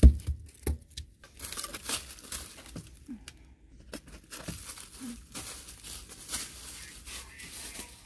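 Close rustling and crackling of dry debris being handled at ground level, irregular and continuing for several seconds. A few low thumps come in the first second.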